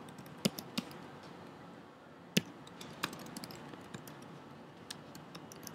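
Typing on a computer keyboard: irregular key taps, a few of them sharper and louder than the rest, over a faint steady hiss.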